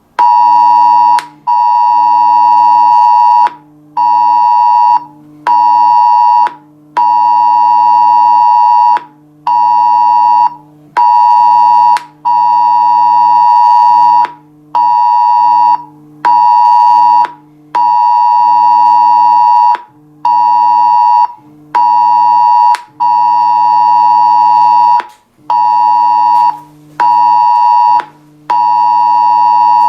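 Mobile phone's Cell Broadcast emergency alert tone sounding for a test warning: a loud, steady high tone switching on and off in beeps of one to two seconds with short breaks between them, repeating throughout.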